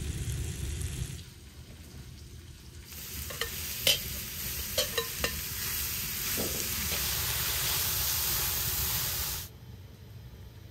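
Chopped red onions dropped into hot melted butter in a cooking pot, setting off a loud sizzle about three seconds in that carries on steadily. A few sharp clicks come from the metal slotted ladle knocking against the bowl and pot. The sizzle cuts off suddenly near the end.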